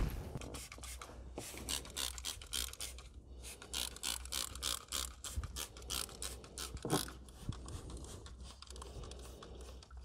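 Trigger-spray aerosol can of quick-drying fabric protector worked by hand over the boot carpet: a quick run of short, sharp hisses and clicks, thinning out after about seven seconds, over a low steady hum.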